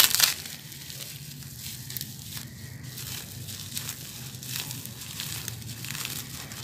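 Plastic bubble wrap crinkling and crackling as it is torn and peeled off by hand, in irregular bursts. A loud tearing crackle comes right at the start as the wrap is cut open with a box cutter.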